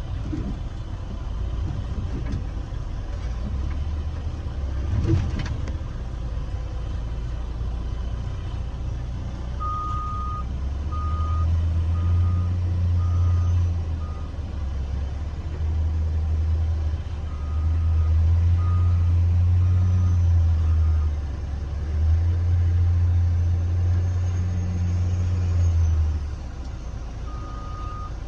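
Heavy diesel logging machinery at work: the engine swells under load in three long spells several seconds each, and a reversing alarm beeps in three runs of evenly spaced beeps as the machine backs up. A single knock comes about five seconds in.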